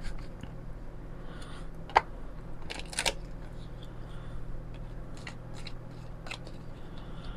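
Round tarot cards being shuffled by hand: soft rustling and clicking of card edges, with sharper clicks about two and three seconds in, over a low steady hum.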